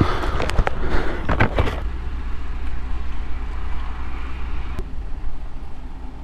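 A burst of knocks and rustling against the microphone for the first couple of seconds, then a steady low vehicle rumble.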